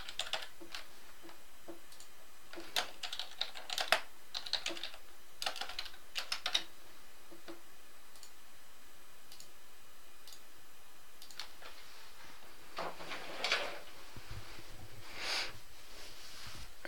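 Computer keyboard typing in short scattered bursts of key clicks, with pauses between them.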